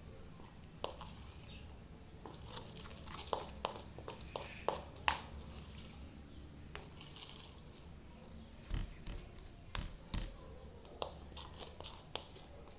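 Sticky homemade glue-and-borax slime being pulled and scraped out of its container by hand: soft crackling, tearing sounds with scattered light clicks and knocks, busiest a few seconds in.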